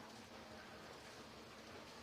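Faint, steady hiss of a pot of herbal decoction boiling down on a gas stove.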